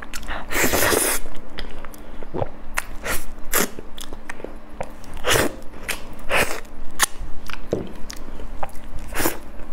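Close-miked eating sounds: a person biting into and chewing soft durian flesh, with many short mouth clicks and smacks. There is a longer, louder burst of noise about half a second in.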